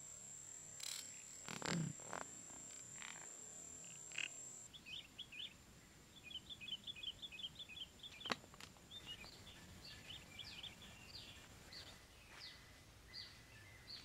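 Bird chirping in quick runs of short, high notes, starting about a third of the way in and going on to the end. Before that there is a steady high-pitched whine and a few knocks from setting the bamboo trap trigger.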